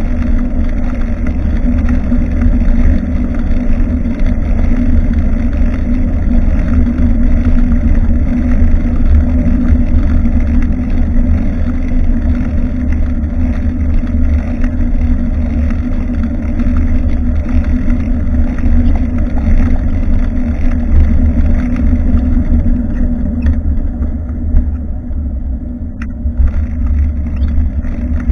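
Wind buffeting the microphone of a bicycle-mounted action camera while riding, a loud continuous low rumble with a steady low hum under it. The higher noise thins out a little over halfway in, and there is a single click near the end.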